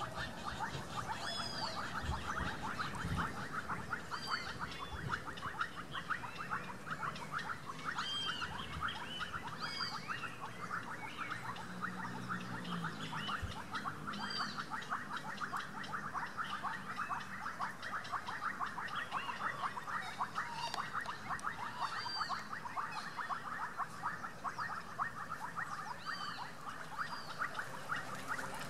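A steady outdoor chorus of animal calls: a dense, fast trill with high, arched chirps breaking in over it every second or two.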